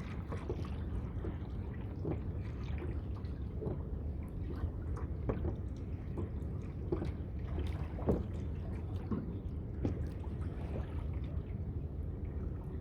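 Water lapping and splashing against a kayak hull: small irregular splashes and drips over a steady low rumble.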